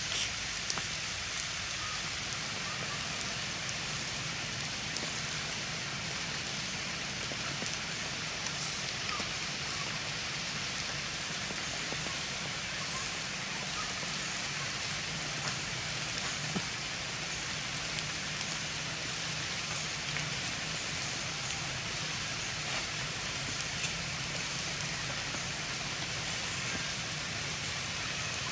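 Steady rain falling, an even hiss with a few faint scattered drip ticks.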